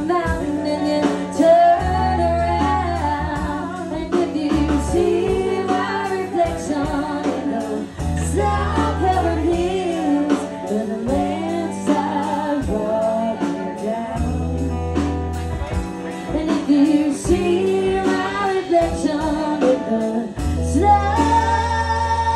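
A woman singing live into a microphone, backed by a band with a steady bass line. Near the end the music cuts to long held notes.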